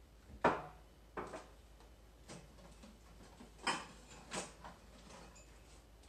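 Ceramic bowls and cups clinking and knocking as dishes are taken from a drying rack and put away in kitchen cabinets: about six separate knocks, the loudest about half a second in.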